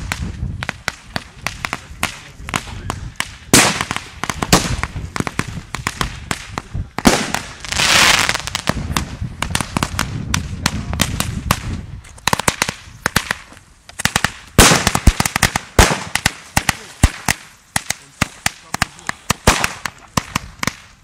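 Firecrackers and fireworks banging in quick, irregular succession, with many sharp cracks overlapping and a longer noisy burst about eight seconds in.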